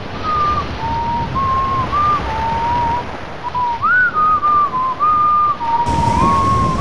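A tune whistled in single clear notes that slide and hop between pitches, over a steady wash of surf-like noise.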